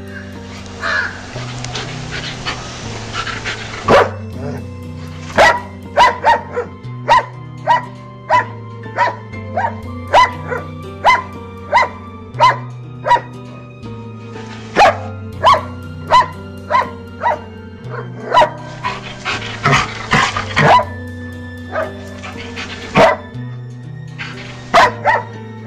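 Dog barking over and over in short, sharp barks, with music carrying a stepping bass line underneath.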